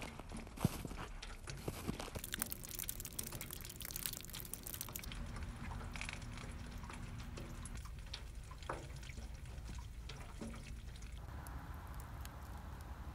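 Meltwater dripping and trickling from thawing icicles and snow, with scattered small drips and ticks over a steady low hum.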